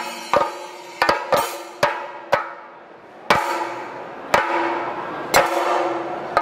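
Chenda drums struck with sticks in a slow, sparse thayambaka passage: single sharp strokes about once a second, each left ringing, before the rhythm turns dense again right at the end.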